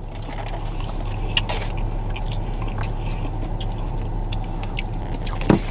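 Chewing and small crackles and clicks of food being handled in styrofoam takeout boxes, over a steady low hum inside the car cabin. A short voiced hum near the end.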